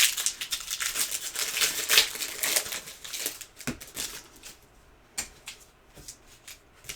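Trading card pack wrappers crinkling and rustling as packs are handled and torn open, busiest in the first few seconds. After that it goes quieter, with a few light clicks and taps of cards being handled.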